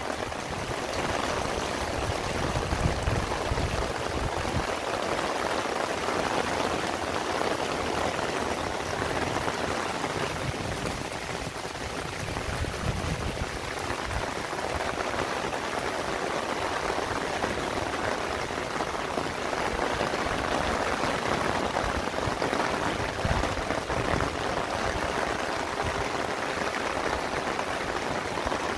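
Heavy rain pouring steadily onto grass, garden beds and leaves: a dense, even hiss, with a few brief low rumbles.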